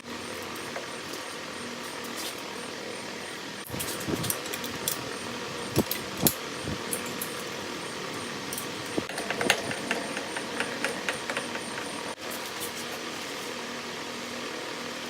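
Steady hum of a running fan under irregular metallic clicks and clinks from a coil of resistance wire being worked off its rod. About two-thirds of the way through there is a quick run of small ticks.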